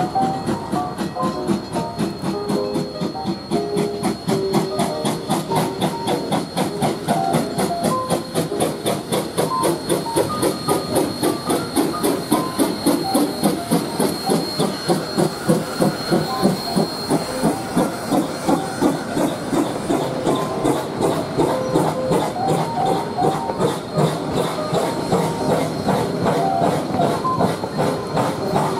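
Coal-fired narrow-gauge steam locomotive working, its exhaust chuffing in a quick, even rhythm, with steam hiss.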